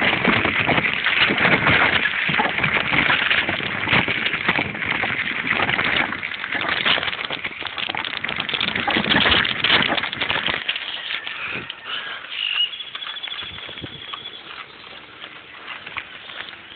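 Rattling clatter and wind buffeting from a camera riding at a bike's handlebars over a rough gravel and dirt downhill trail, a dense run of knocks and jolts. It eases after about ten seconds into quieter outdoor noise with a brief high whistle-like tone.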